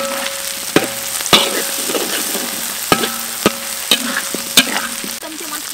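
Shallots sizzling in oil and chili paste in a metal wok. A metal spatula stirs them, scraping and clanking against the wok about seven times.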